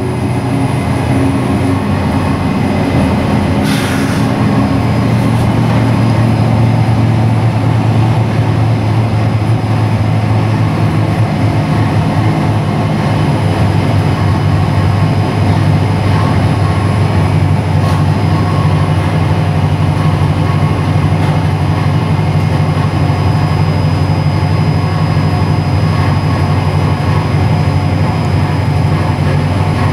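355 cubic-inch small-block Chevy V8 race engine, with a flat-tappet solid cam and 14:1 compression, running on an engine dyno after a full-throttle pull. Its speed drops at the very start, then it runs steadily at a fast idle to cool down.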